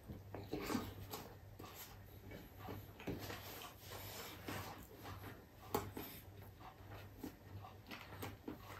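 Faint close-up eating sounds: a mouthful of garlic fried rice being chewed, with soft clicks and rubbing as bare fingers gather more rice from the plate. One sharper click comes near the middle, over a low steady hum.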